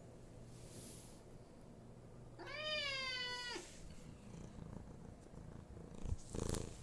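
A domestic cat gives one long meow, rising and then falling in pitch, over a faint low purr. A short rustling bump follows near the end.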